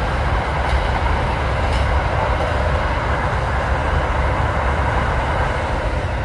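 Freight train of container wagons rolling past, a steady rumble of wheels on rail with a couple of faint clicks.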